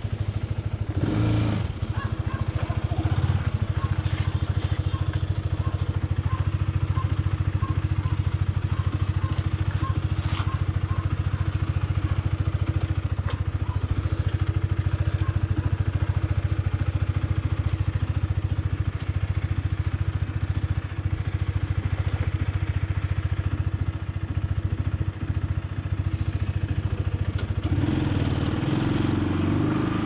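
Honda sport motorcycle's engine running steadily as the bike is ridden, briefly surging about a second in, then picking up and rising in pitch near the end as it accelerates. A faint short beep repeats about every half second through the first ten seconds.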